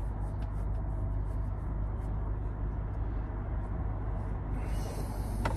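Steady low hum inside a parked car's cabin, with a brief rustle near the end.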